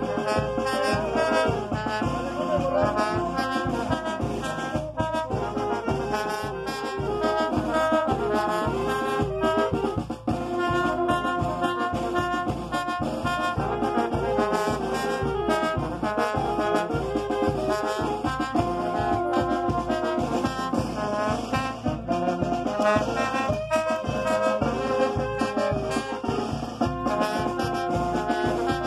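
Brass band playing a lively tune, trumpets and trombones carrying the melody over a steady, quick beat.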